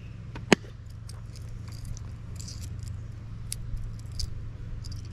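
Pedersoli Liegi screw-barrel derringer's hammer clicking once, sharply, to half cock about half a second in. Lighter clicks and taps follow as the pistol and a small brass tool are handled, over a steady low hum.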